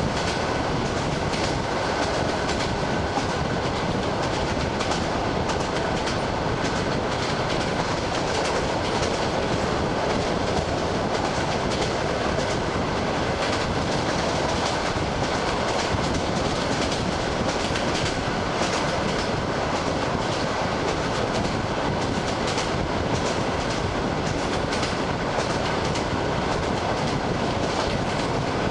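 ED9M electric train running at speed, its wheels clicking steadily over the rail joints under a constant rolling rumble, heard from the train's window.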